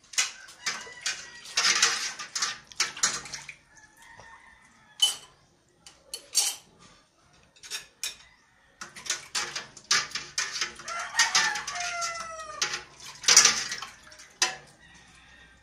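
Dishes being washed by hand: a spoon, plates and stainless-steel basins clink and knock in a sink in a series of sharp clatters. Chickens call in the background, with a falling call about eleven seconds in.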